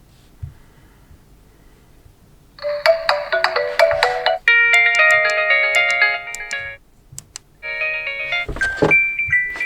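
Ringtone melodies from an Honor Magic4 Lite 5G phone, played one after another as previews. After about two and a half seconds of quiet, a short chiming tune starts and is cut off about two seconds in by a different tune. A brief gap with a couple of clicks follows, then a third tune.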